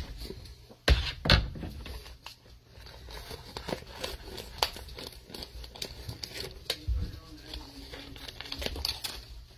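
Clear plastic package of ground venison crinkling as it is handled, snipped open with scissors and pulled apart, with scattered crackles throughout and two sharp knocks about a second in.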